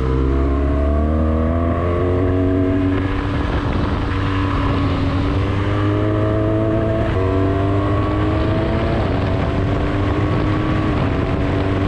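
BMW R1200GS boxer-twin engine under way, pulling up through the gears: its pitch climbs steadily and falls back at each gear change, several times, under a deep rumble and a steady rush of wind.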